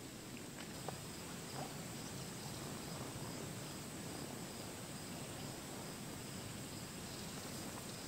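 Insects trilling steadily: a high continuous whine with a fainter repeating chirp over low outdoor background noise. There are a couple of small clicks about a second in.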